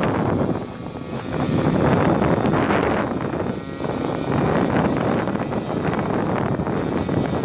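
Strong wind buffeting the microphone in gusts that swell and ease, with a faint steady high whine underneath.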